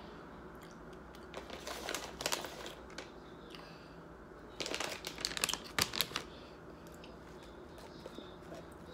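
Close-miked crunching of a hard taco shell while eating, in two short spells of crisp crackles.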